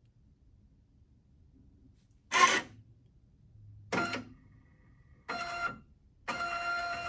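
Zebra ZT400-series thermal label printer's media drive running as panel buttons are tested: two short, sharp mechanical bursts, the first the loudest, then a brief feed, then a steady whining feed from about six seconds in.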